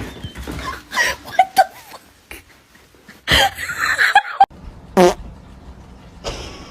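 A string of short, separate noise bursts and brief pitched squeaks, with one quick falling squeal about five seconds in.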